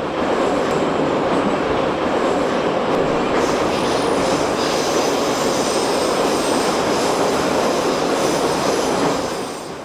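Train running on rails: a loud, steady rumble that fades in at the start and fades out near the end, with faint high tones joining about three and a half seconds in.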